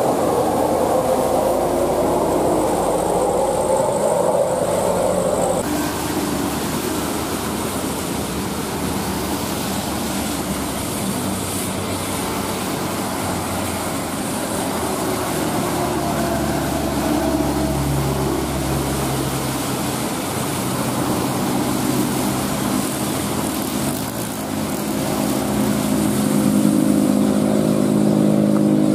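Road traffic on a rain-wet road: a large coach's engine passes in the first few seconds and cuts off abruptly, then a steady wash of tyre and engine noise. Near the end, the diesel engine of a loaded Hino 500 dump truck climbing the hill toward the listener grows louder.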